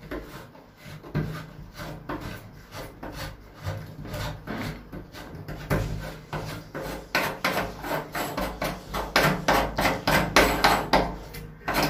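A hand twisting the metal rose plate of a round-knob door lock counterclockwise to unscrew it: repeated short rubbing, scraping strokes of skin and metal against the door, quicker and louder from about halfway.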